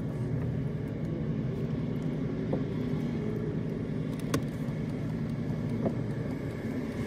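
Road traffic passing across an intersection, heard from inside a stopped car with its window open, over a steady low engine rumble. A few light clicks come through.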